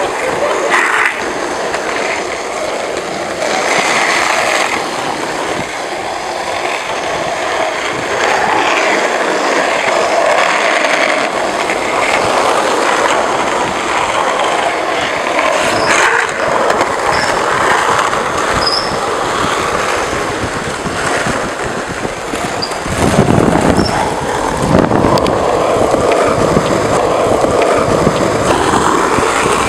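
Skateboard and inline-skate wheels rolling over asphalt, a continuous rough rolling noise. A heavier low rumble joins in for the last several seconds.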